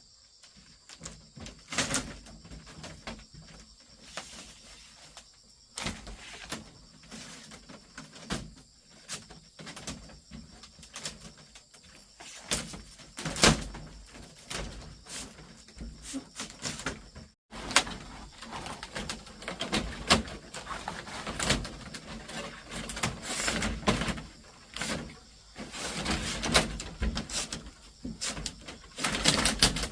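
Irregular knocks, taps and scrapes of hand work on bamboo, coming in uneven clusters and growing busier in the second half.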